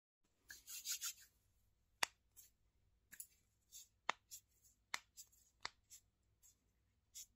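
Hands rubbing and brushing close to the microphone: a burst of rubbing about half a second in, then several sharp clicks and short swishes spaced about a second apart.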